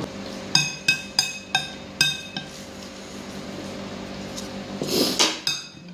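Metal spoon clinking against a glass mixing bowl while stirring a tuna mixture: about six short ringing clinks in the first two and a half seconds, then a softer scrape about five seconds in.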